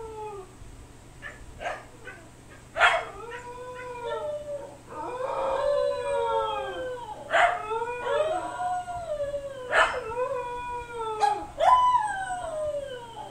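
Siberian huskies howling and yipping, a string of calls that each start sharply and slide down in pitch, with one longer howl about halfway through. It is protest howling at being kept penned in.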